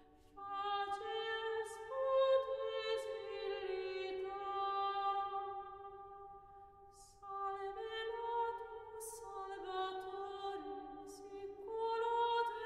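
Gregorian chant: slow, unaccompanied sung phrases of long held notes, fading out about halfway through before a new phrase begins.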